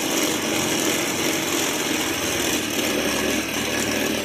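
Cotton candy machine running, its spinning head whirring steadily as it flings melted sugar out into fine floss threads.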